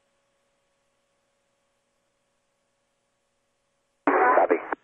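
A faint steady hum on the air-to-ground radio loop, then near the end a short, loud burst of narrow-band radio noise lasting under a second, like a transmission keying up and cutting off.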